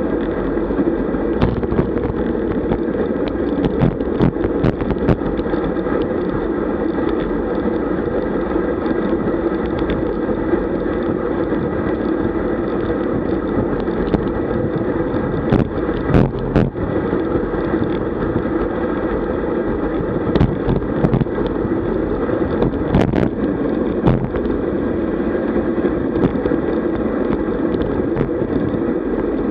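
Steady wind and road rush on the microphone of a camera riding along on a road bike at about 45 km/h, with scattered short sharp clicks and knocks.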